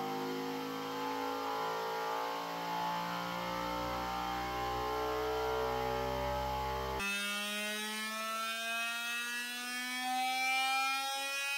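Flashforge Adventurer 5M Pro 3D printer running its vibration-compensation (input shaping) calibration: the stepper motors shake the print head through a sweep of frequencies, giving a buzzing tone that glides in pitch. About seven seconds in it cuts abruptly to a second sweep that rises steadily.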